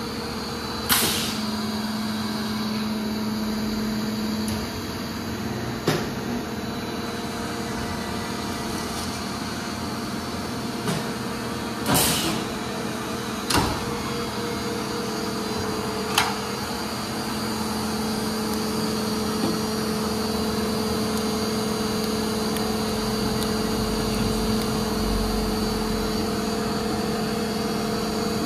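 Shuttle-tray high-frequency plastic welding machine running with a steady hum of two held tones, broken by several short sharp hisses and clicks as the tray and press cycle. The hum grows slightly louder in the last ten seconds.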